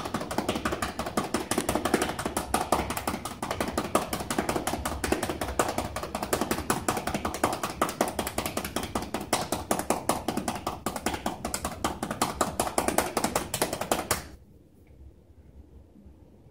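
Rapid, rhythmic clapping of cupped hands on a patient's bare back: manual chest percussion for postural drainage, done to loosen mucus in congested lungs. The clapping stops suddenly near the end.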